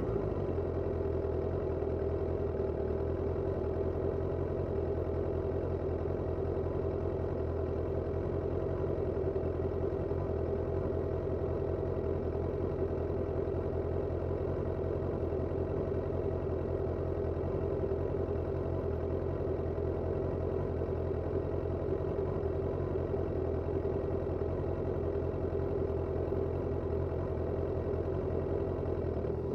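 Suzuki Katana 750's inline-four engine idling steadily, heard from a recorder under the seat.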